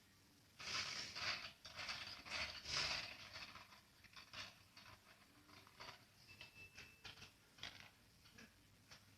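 Rustling and clicking from objects being handled at close range: a dense burst in the first few seconds, then scattered fainter taps and clicks.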